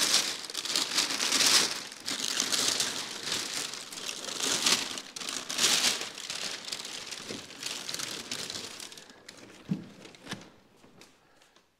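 Heavy brown kraft packing paper crinkling and rustling as it is pulled back and handled, loud for about nine seconds and then dying away. Near the end come a couple of knocks.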